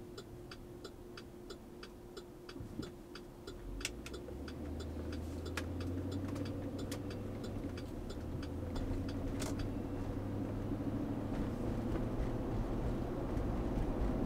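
GMC Yukon's engine running, its steady low hum growing louder about four seconds in and holding, with a regular ticking of about two to three clicks a second through the first few seconds.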